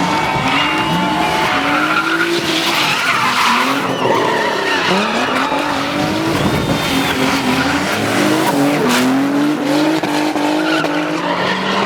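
Twin-turbo Nissan 350Z drifting: the engine revs climb and drop over and over as the throttle is worked, over the steady screech of sliding tyres.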